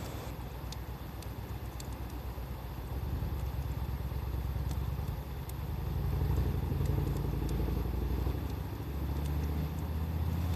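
A vehicle engine rumbling low for several seconds, swelling a little in the second half, over the sparse faint crackles and pops of a wood bonfire.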